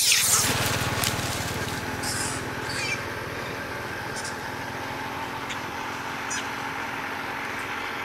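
Macaque shrieks at the start, fading within the first second, then a couple of shorter high calls about two to three seconds in, over a steady low hum.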